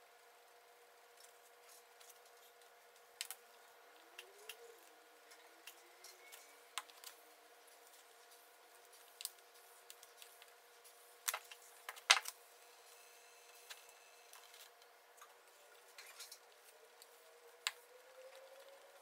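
Scattered light clicks and taps of small sawn veneer pieces and hand tools being handled during marquetry assembly, the loudest pair of taps about twelve seconds in.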